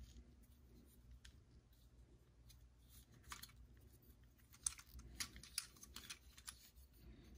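Faint, scattered clicks and taps of the plastic parts and joints of a Transformers Earthrise Optimus Prime action figure being handled as its arms are folded back. The clicks are sparse at first and come more often from about three seconds in.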